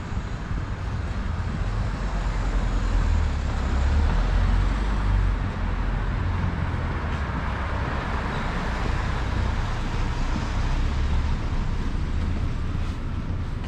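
Street traffic: cars passing along a narrow town street, a steady low rumble with tyre and engine noise that swells through the middle and eases off.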